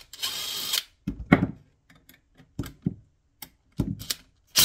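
Cordless impact driver running briefly, well under a second, backing a Phillips screw out of a motor's end cap, followed by several sharp clicks and knocks as the bit is moved to the next screw.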